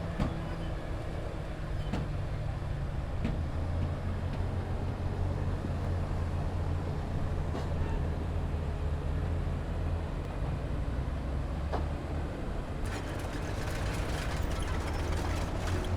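Diesel engine of heavy earthmoving equipment running steadily with a low drone. From about three-quarters of the way through, scattered clicks and rattles join in.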